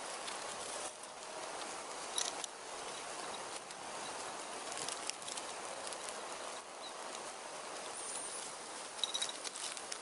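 Dry leaves and sticks rustling and crackling as a stick-and-leaf debris shelter is being built, with scattered sharp twig clicks, a cluster of them near the end.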